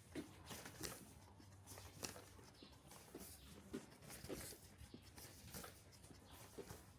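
Faint, irregular light taps and clicks over quiet room tone, a few a second, with a slightly sharper knock about two seconds in.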